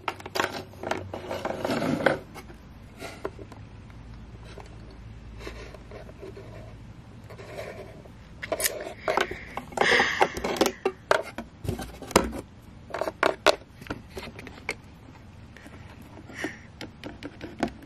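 Small plastic toy figures and props being handled and moved about: scattered clicks, scrapes and rubbing, busiest in the first two seconds and again from about eight to fourteen seconds in.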